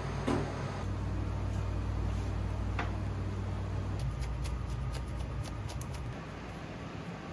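A steady low kitchen ventilation hum. From about four seconds in, a quick run of chef's knife strokes tapping on a plastic cutting board, about five a second for two seconds, as green onion is finely sliced.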